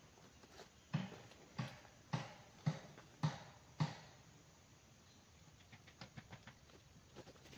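Six dull knocks about half a second apart, as something is pounded at ground level while a trap is being set. They are followed by faint rustling and small clicks in dry leaf litter.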